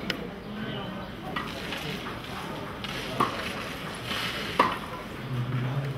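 Tennis balls being struck back and forth on a clay court: sharp single pocks roughly every second and a half, over a steady outdoor hiss.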